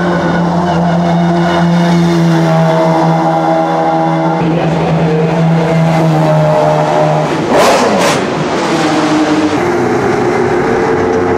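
McLaren F1 GTR's BMW V12 race engine running at steady, low revs, its pitch stepping to a new level a couple of times. A pair of sharp cracks cuts through about three quarters of the way in.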